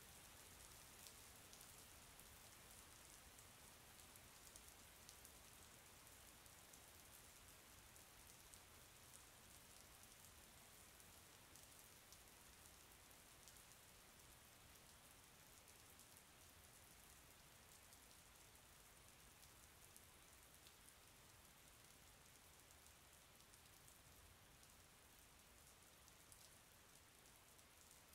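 Faint, steady rain falling, an even hiss with many small drop ticks, easing slightly over the stretch.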